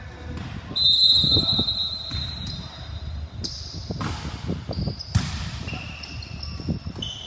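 Basketball being dribbled on a hard court: repeated low thuds, with high squeaks over them, one long squeal near the start. A sharp knock about five seconds in is the loudest sound.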